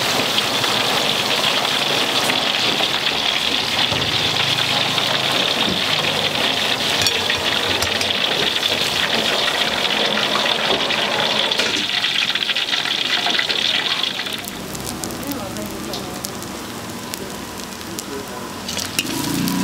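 Fried rice frying in a large wok, a steady hissing sizzle. About fourteen seconds in the sizzle drops and thins, leaving scattered clicks.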